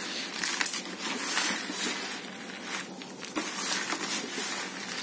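Dry potting soil, mixed with compost and organic bio-mix, being stirred and scooped by hand in a plastic bucket: a steady gritty rustling with small irregular crunches.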